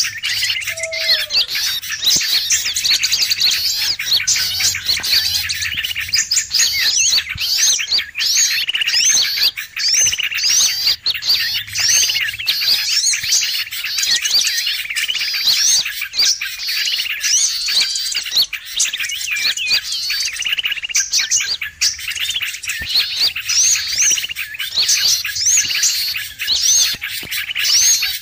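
Bird-lure recording of a noisy chorus of many small songbirds: dense, overlapping high chirps and twitters that never let up, with one short, lower falling whistle about a second in.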